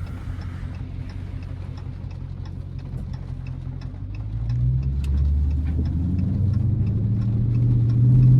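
Dodge Charger Scat Pack's 6.4-litre 392 HEMI V8 running low inside the closed cabin, its note rising as the car picks up speed about halfway through. Over it the turn-signal indicator ticks at an even pace.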